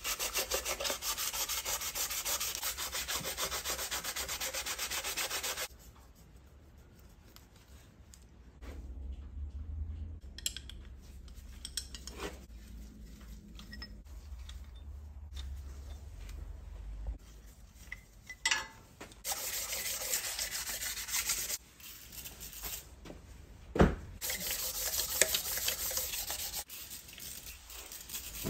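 Hand scrubbing of the cast-iron deck of a Classic Mini's A-series engine block, cleaning off old head-gasket residue: rapid rubbing strokes for about six seconds, then two shorter spells later on. There is one sharp knock about 24 seconds in.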